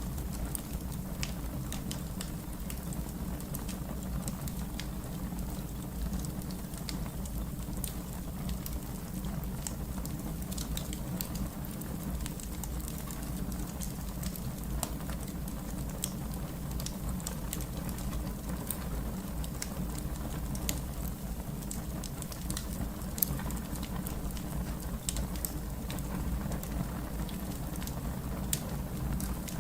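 Fire crackling: a steady low rumble with irregular sharp pops and snaps throughout, one louder pop about three-quarters of the way through.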